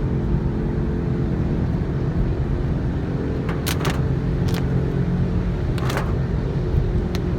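Subaru WRX STI's turbocharged flat-four engine and road noise droning steadily while the car cruises. A few sharp clicks or knocks come through around the middle.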